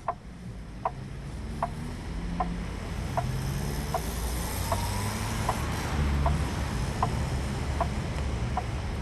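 Steady, evenly spaced ticking, a sharp click a little more than once a second, over a low rumble that grows louder.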